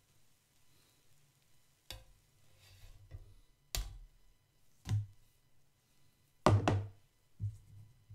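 A spatula knocks and scrapes on a round crepe griddle as a cooked chocolate pancake is lifted off and set down on a serving board: a handful of separate knocks, the loudest a quick double about six and a half seconds in.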